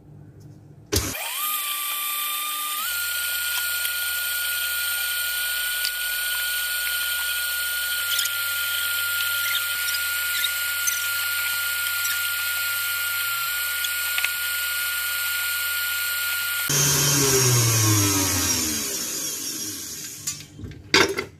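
KitchenAid tilt-head stand mixer beating eggs and sugar with its wire whisk on high speed. Its motor gives a steady whine that steps up in speed a couple of seconds in, then falls in pitch and stops near the end, followed by a couple of knocks.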